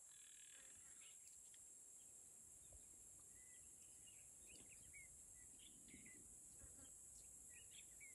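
Near silence: quiet bush ambience with a steady high hiss and faint, scattered bird chirps that begin about a third of the way in.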